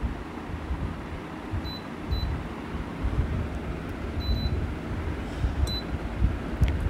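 Air fryer's touch control panel beeping as its buttons are pressed to set the cooking time: four short, high beeps a second or two apart, over a low rumble.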